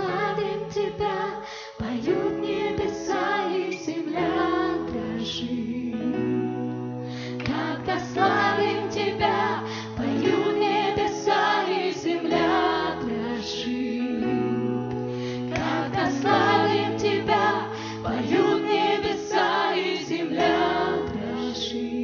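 Live worship band playing a song: several singers over keyboard, bass guitar and drums, with long held bass notes.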